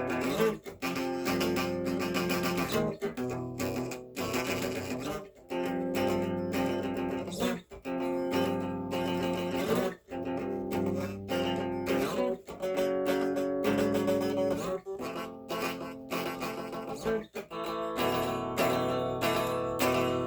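Instrumental guitar music: sustained chords that stop briefly about every two and a half seconds, in a repeating pattern.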